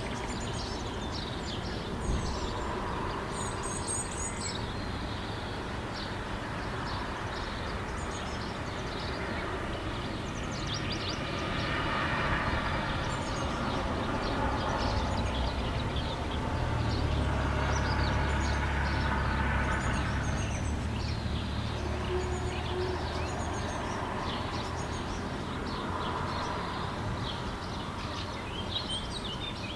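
Small birds chirp and sing throughout over a steady outdoor background. A heavy vehicle passes: its low rumble swells from about ten seconds in, is loudest a little after halfway, and fades away about two-thirds of the way through.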